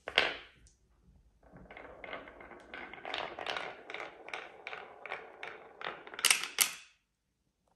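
Two marbles rolling down a wooden zigzag slope track, a continuous rumble with a regular knock about three times a second as they swing through the turns. Near the end come two sharp clacks as they drop off the bottom.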